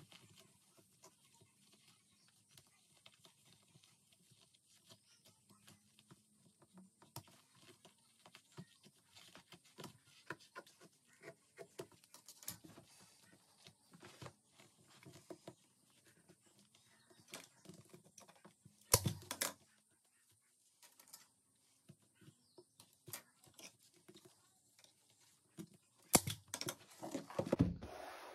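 Scissors snipping and trimming excess leather from the stapled underside of a chair seat, with the leather rustling as it is pulled away. A few louder knocks: one about two-thirds through, and a burst near the end as the seat is turned over.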